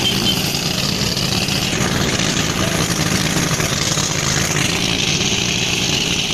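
Motorized rice threshing machine running steadily, its engine driving the threshing drum as bundles of rice stalks are fed in.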